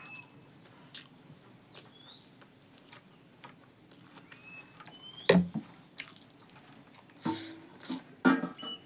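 Close-up eating sounds: chewing with wet smacks and small clicks, the loudest smack about halfway through and more near the end. Short high chirps sound now and then in the background.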